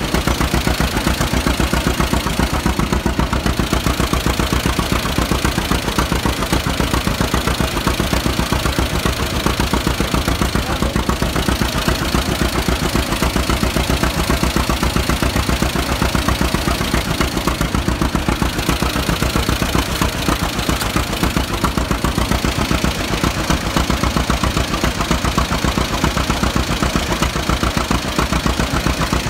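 Vintage John Deere two-cylinder tractor engine running steadily at low speed, with evenly spaced firing pulses.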